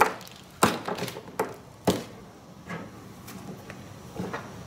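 Hand tools being handled on a workbench: a few scattered sharp clicks and knocks, the loudest right at the start, with no drill running.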